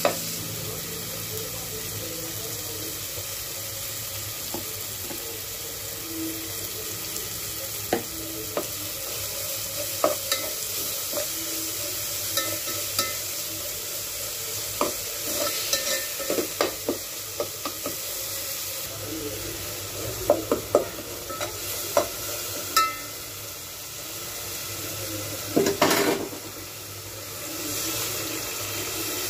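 Chopped tomatoes and spices sizzling in oil in a metal pot, with a spoon scraping and clinking against the pot as the mixture is stirred. Near the end, water is poured into the pot.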